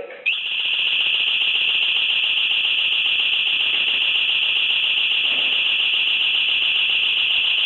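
Home security alarm siren sounding a loud, steady, high-pitched tone with a slight flutter. It has been set off by the system's glass-break sensor.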